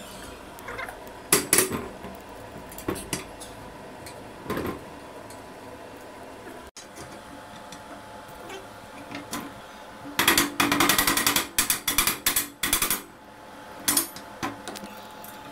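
Mallet with a light rubber-type head striking the steel frame of a Pilates Cadillac to knock a crossbar joint into place. A few separate knocks, then a quick run of blows about ten seconds in, then a few more near the end.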